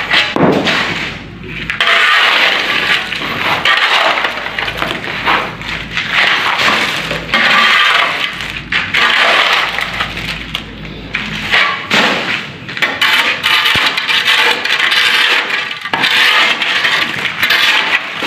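A metal hand tool scraping and dragging through broken concrete rubble and gravel on a concrete floor, with the debris crunching and clinking. The strokes repeat, each lasting a second or two.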